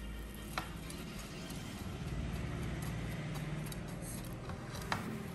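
Fingers pressing and rolling a crushed cornflake and breadcrumb coating onto a frozen ice cream ball, a soft crunching and rustling. Two sharp clicks come through, one about half a second in and one near the end.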